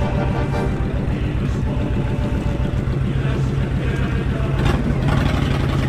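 Honda VTX cruiser's V-twin engine running under way at low speed, a steady pulsing beat that gets a little louder about five seconds in.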